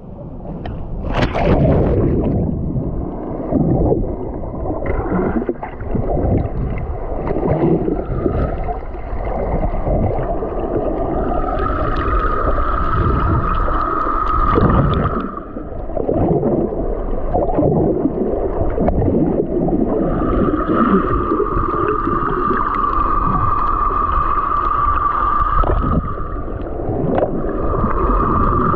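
A splash about a second in as the camera goes into the sea, then the muffled underwater sound of water moving around the camera, with soft knocks. A steady whine comes and goes three times.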